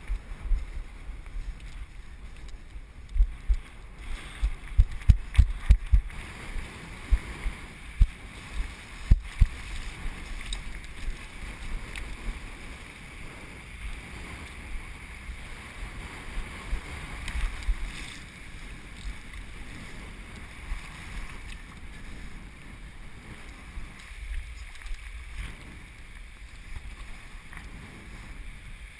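Wind buffeting an action camera's microphone: a steady hiss broken by gusty low rumbles, heaviest in the first ten seconds or so.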